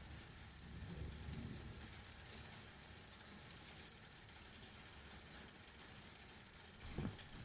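Steady rain falling as a faint, even hiss, with low rumbles of thunder in the first second or so and a louder rumble starting near the end.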